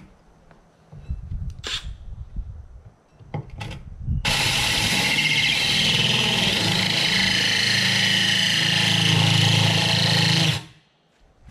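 Cordless drill spinning a diamond hole saw, grinding into the water-wetted glass bottom of an aquarium. It starts abruptly about four seconds in, runs steadily for about six seconds with a hum and a high grinding whine, and cuts off abruptly.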